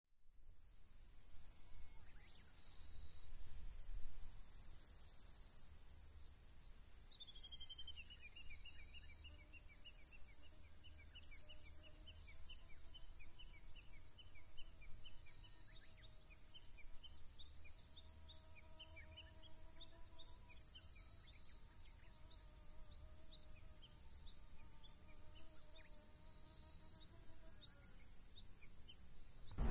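Steady high-pitched chorus of insects outdoors, with a run of quick high chirps about a quarter of the way in.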